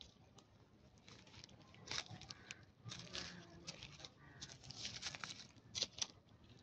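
Dry fallen leaves crackling and rustling in quick, irregular clicks as monkeys shift on the leaf litter, loudest about two seconds in and again near the end.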